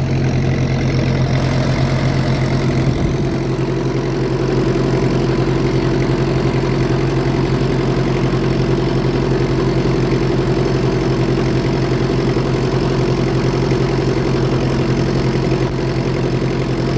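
A 1967 International 434 tractor's engine running steadily under load while pulling a plough through heavy, wet ground. Its note shifts about two seconds in, then holds steady.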